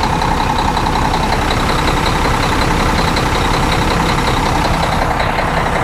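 Cummins ISX diesel engine of a Volvo 780 truck idling steadily with a fast, even rhythm, cold just after a cold start and warming up.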